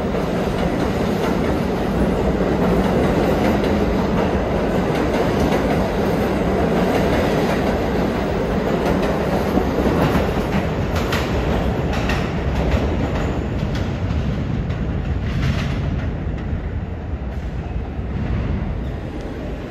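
New York City Subway train running on the rails with a steady rumble. Its wheels click over rail joints several times partway through, and the noise eases off slightly near the end.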